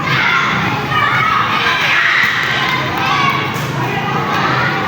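A crowd of young spectators shouting and cheering, many voices at once, at a basketball game.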